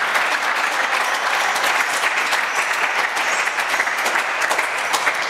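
Spectators applauding steadily for a won point, dense clapping that carries on without a break.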